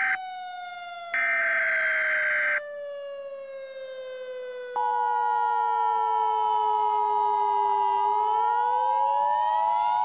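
Mock Emergency Alert System alert audio. A siren-like tone glides slowly down in pitch and rises again near the end. The tail of a buzzing SAME digital header burst sounds at the very start, and another runs from about one to two and a half seconds in. About five seconds in, the steady two-tone EAS attention signal starts.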